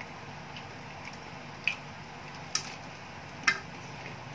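Crispy fried-chicken coating crunching close to a headset microphone as it is pulled apart and eaten: three short sharp crackles about a second apart over a steady hiss.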